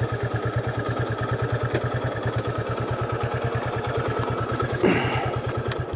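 Motorcycle engine idling with a steady, even beat, then switched off, cutting out suddenly at the very end. A short, loud sound with a bending pitch comes about five seconds in, just before the engine stops.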